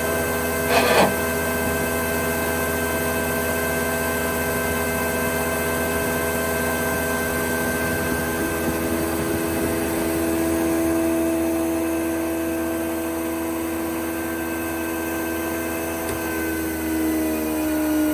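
Jaroma DSFA-40 thickness planer running with no load, its 4 kW motor and four-knife cutterhead giving a steady hum. There is a short knock about a second in, and the pitch shifts slightly lower near the end.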